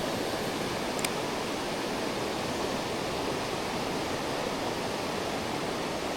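Mountain stream water rushing steadily over rocks, a constant even rush. A faint click about a second in.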